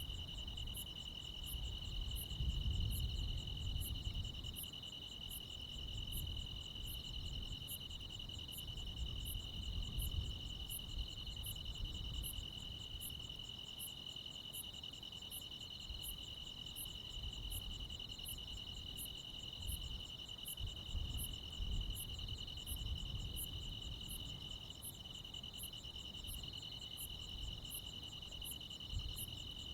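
A night chorus of crickets and other insects: a steady, shrill trill with a second, pulsing band just above it, and a high, thin chirp repeating evenly a little more than once a second. A low rumble lies underneath.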